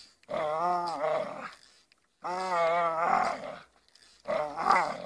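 Pit bull growling with its jaws clamped on a branch while it hangs from a tree: three long, pitched growls in a row, each about a second long, with short breaks between.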